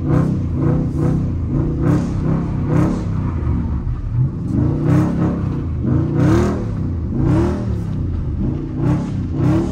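Dodge Charger Scat Pack's 392 HEMI V8 revving up and down in repeated surges, about one a second, as the car slides on wet pavement, heard from inside the cabin.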